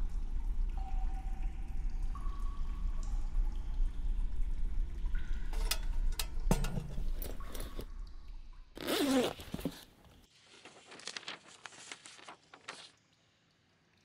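Low rumbling sewer-tunnel ambience with a wet, dripping character, broken by a few knocks as a lantern and backpack are set down on the concrete floor and a short loud rasp of the backpack's zip. The rumble then drops away and the paper pages of a spiral sketchbook rustle as they are flipped.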